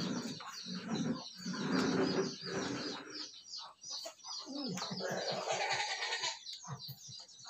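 Small birds chirping continuously in quick, repeated high-pitched notes, with indistinct voices in the first few seconds.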